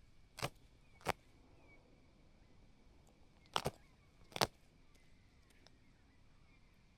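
Wedge-tailed eagles feeding on a Cape Barren goose carcass: five sharp cracks and snaps as the carcass is torn and crunched, two of them close together in the middle. A faint steady high tone runs underneath.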